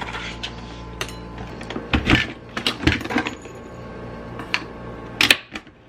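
Kitchen handling sounds at a Nespresso coffee pod machine: clinks and knocks as a small glass jar is set down on the counter and a coffee capsule is taken from its box and fitted into the machine. A string of clicks, with a cluster of louder knocks about two seconds in and one sharp hit near the end.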